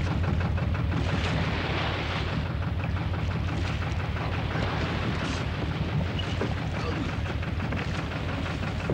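Small open boat's engine running with a steady low throb, and water splashing, loudest about one to two seconds in, as a man is hauled from the sea into the boat.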